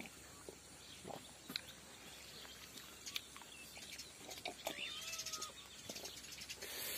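Faint outdoor background with a few soft clicks, and short animal calls about four to five seconds in.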